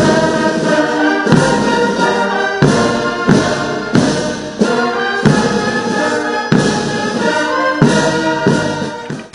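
Military brass band playing, held brass notes over a steady beat of big drums.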